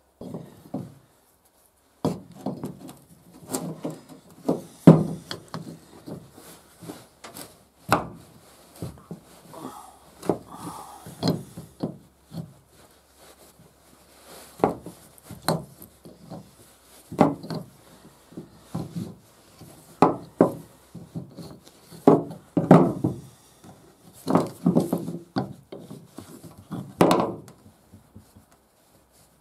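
Irregular knocks, clinks and rubbing of hand work on the 4WD vacuum actuator housing: a metal part and an adjustable wrench are handled, turned and set down on a plastic truck bed liner while the wrench works a fitting loose from the housing.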